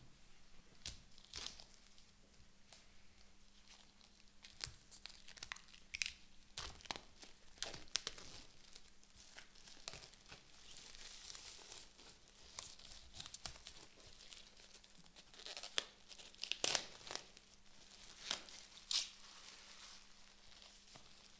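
Plastic shrink-wrap being torn off a book and crumpled, with irregular crackles and rustles. The sharpest snaps come about three-quarters of the way through.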